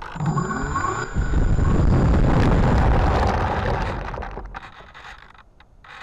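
The RC P-51D Mustang's motor spins up with a rising whine. Its propeller blast then buffets the nose-mounted camera's microphone as a loud rushing noise for about three seconds before dying away. A few short clicks follow near the end.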